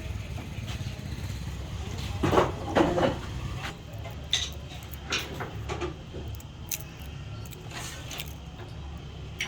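Steady low hum of workshop machinery, with two louder brief sounds about two and three seconds in, then scattered sharp clicks and light clatter of small parts being handled.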